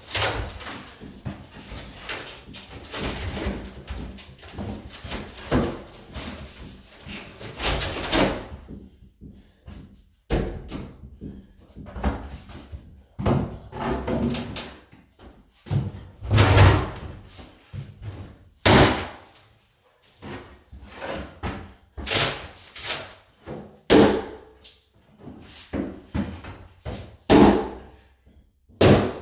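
Wooden cabinet being demolished by hand. About eight seconds of continuous clattering noise, then a pause, then a long run of separate heavy blows and crashes of wood, some much louder than others.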